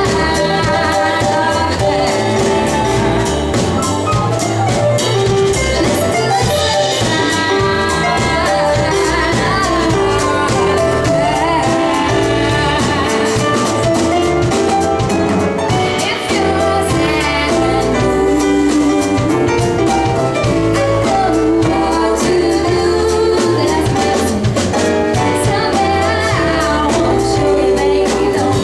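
Live band playing a song: a woman singing lead over electric keyboard, drum kit and upright double bass.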